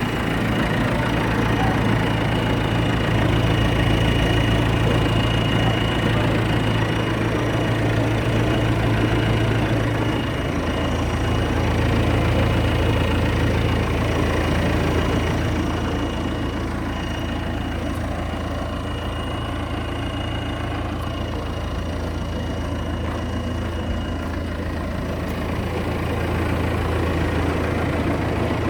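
1998 JCB backhoe loader's diesel engine idling steadily, its note shifting slightly about ten seconds in.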